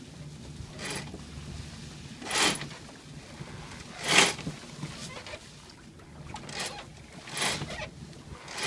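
A small cruising sailboat, a BayCruiser 26, under way: water washing along the hull in six short surges, the loudest about four seconds in, over a steady low rumble.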